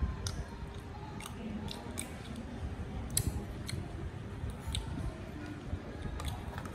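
Eating sounds from a meal of rice and small shrimp with a metal spoon: a dozen or so scattered sharp clicks and crunches over a low rumble.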